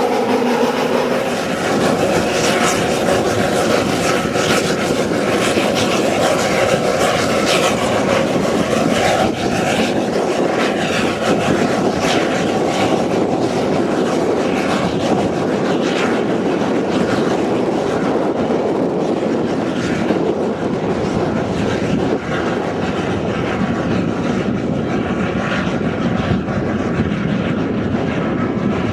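A Snowdon Mountain Railway rack train running, a steady loud engine and running noise with scattered clicks.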